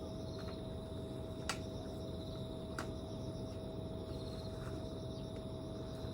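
Insects chirping steadily, over a faint steady hum, with two light clicks about a second and a half and three seconds in.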